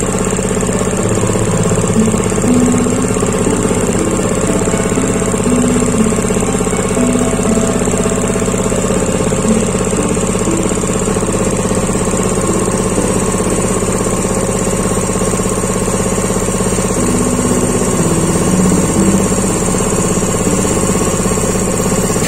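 Tanabe H-264 two-stage, water-cooled marine piston air compressor running steadily on a test run.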